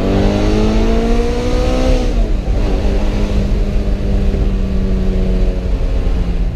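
Ferrari V8 engine on its stock exhaust, accelerating with a steadily rising pitch. The revs drop sharply about two seconds in, then the engine pulls on at a fairly steady, slowly climbing pitch.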